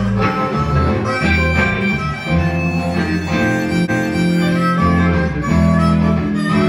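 Blues harmonica played live, cupped against a handheld microphone so it comes through amplified, wailing held and bending notes over a backing band with guitar and a low bass line.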